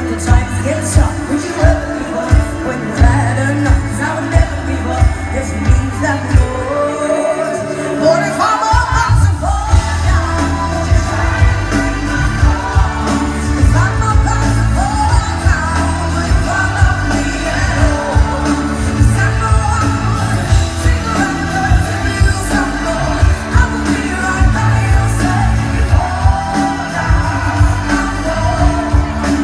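Live pop band playing, with a female singer's wordless vocal runs over keyboards, bass and drums. The bass and beat drop out for about two seconds around six to eight seconds in while the voice slides upward, then the full band comes back in.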